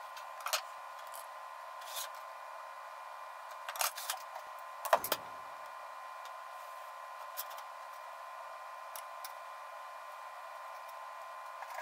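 Light taps and clicks of metal squares being set down and slid on a thin steel sheet while marking it out, the loudest about five seconds in, with a short low ring after it. A faint steady hum underneath.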